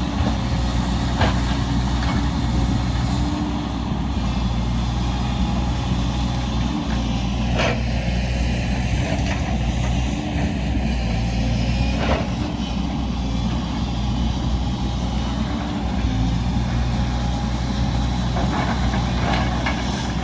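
Heavy diesel construction machinery, an excavator and dump truck, running with a steady low engine drone, with several sharp knocks spread through.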